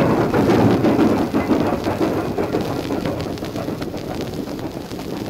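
Old record playing on a Zenith console stereo's turntable: dense crackle and clicking surface noise over a rumbling hiss, easing off a little toward the end.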